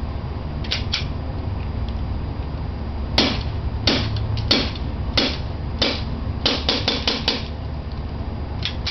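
CO2 blowback airsoft pistol (AE Homeland Defender) firing: a series of sharp metallic snaps, single shots at first, then a quick run of five about a fifth of a second apart.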